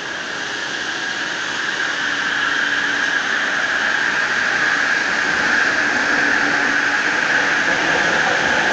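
Bombardier Innovia Metro 300 linear-induction-motor metro train pulling away from the platform. A steady high whine and rolling noise grow louder over the first few seconds as it gathers speed, then hold level.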